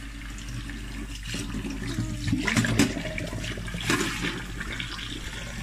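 Tap water running into a stainless steel sink and splashing over a bunch of radish leaves being rinsed and rubbed by hand, with louder splashes around the middle.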